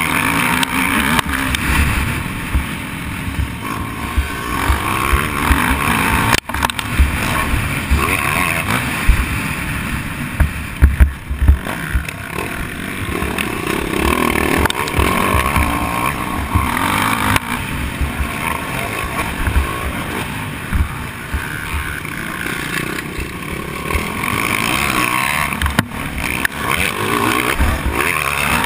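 Dirt bike engine running under throttle, its pitch rising and falling as the rider accelerates and backs off, heard from a camera on the bike with heavy wind buffeting on the microphone. A few sharp knocks come about 9 to 11 seconds in.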